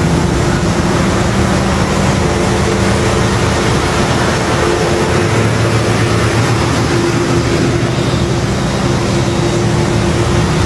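Heavy FIAT TM69 6x6 truck engines running steadily on the move, a low drone under constant road and wind noise; the engine note drops a little about halfway through.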